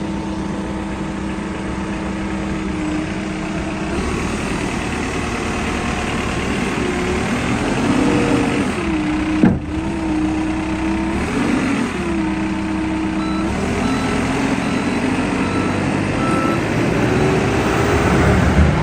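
Diesel engine of a Case 695SR backhoe loader running steadily, its pitch dipping and rising several times around the middle as the machine is worked. There is a sharp click about halfway through.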